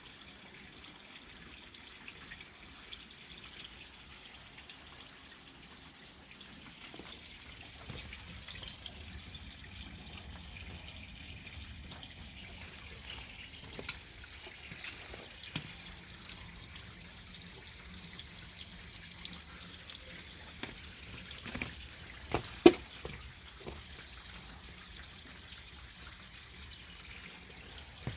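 Water running and trickling through a 1929 Kohler Dorking round toilet as it flushes and refills. A few faint clicks are scattered through it, with a sharper knock or clunk about 22 seconds in.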